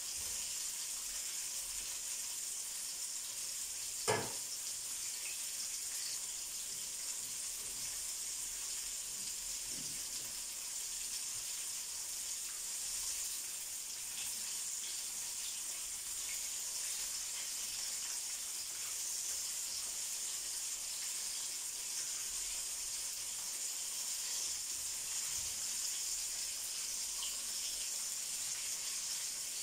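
Hot oil sizzling steadily as battered chicken strips deep-fry in a frying pan. One sharp click about four seconds in.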